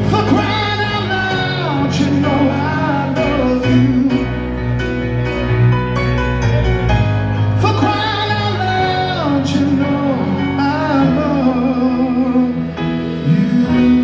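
Live rock band playing a slow ballad: a male lead singer sings two long phrases with vibrato, the first at the start and the second about seven and a half seconds in, over held band chords with guitar and drums.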